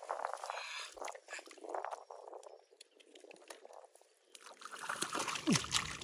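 Shallow muddy water splashing and sloshing as hands work through it, with many small clicks and a louder burst of splashing near the end.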